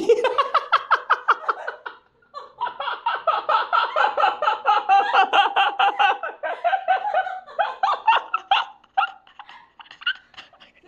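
A man laughing hard in long runs of quick, pulsing bursts, with a short break about two seconds in.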